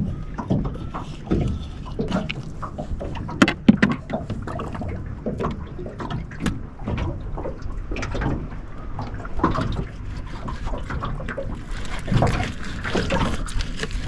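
Fillet knife cutting fish on a plastic cooler lid: irregular wet slicing, scraping and knocking, the sharpest knock about three and a half seconds in. A steady rush of wind and water comes in near the end.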